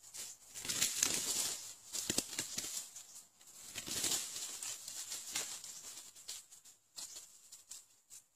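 Dry leaves and brush rustling and crackling in two long spells, full of small clicks, then a few scattered crackles near the end.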